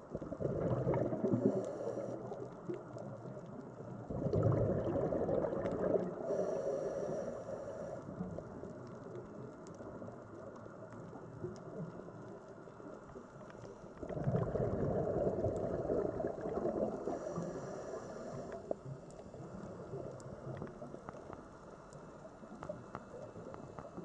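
Scuba diver's regulator breathing underwater: three long bubbling exhales, each followed a second or two later by a short hissing inhale through the regulator.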